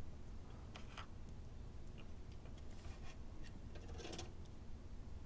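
A few faint, light clicks and scrapes of a small screwdriver and small metal parts handled at the brush holder of a vintage Lionel locomotive motor. The loudest click comes about four seconds in.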